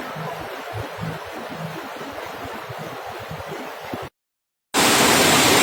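Rushing floodwater, with wind buffeting the microphone. The sound cuts to silence for about half a second around four seconds in, then a louder, steady rush of fast-flowing floodwater starts.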